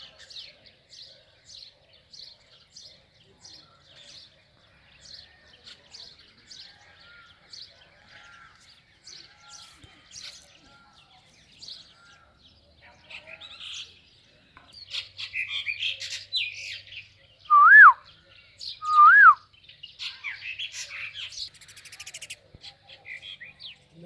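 Birds chirping: a steady run of short high chirps, two or three a second, then a busier mix of calls in the second half. Two loud, clear calls, each rising and then dropping sharply, come about a second and a half apart and are the loudest sounds.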